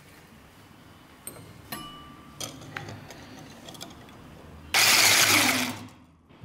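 Wire balloon whisk beaten fast in a ceramic bowl of thin dalgona-coffee mixture for about a second, rattling against the bowl and splattering the liquid. A few light clicks come before it.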